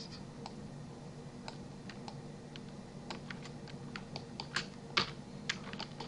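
Irregular clicks and taps of a computer keyboard and mouse, the loudest few about four and a half to five seconds in, over a steady low hum.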